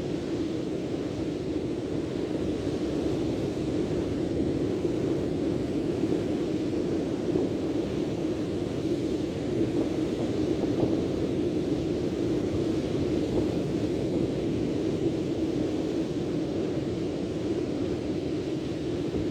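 Steady rushing noise of wind and surf at the seashore, even throughout with no distinct events.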